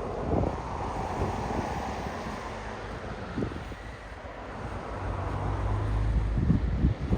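Wind buffeting the microphone in a snowstorm, with a few muffled crunching steps in snow. A low rumble with a steady hum swells about five seconds in, then fades.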